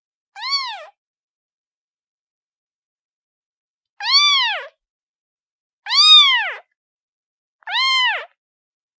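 Domestic kitten meowing: four short, high meows, each rising and then falling in pitch, the first about half a second in and the other three in the second half, with silence between them.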